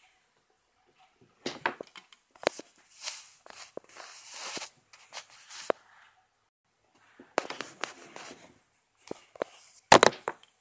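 Irregular taps, knocks and rubbing on a handheld tablet, heard as scattered sharp clicks and short scuffs, with one louder knock near the end.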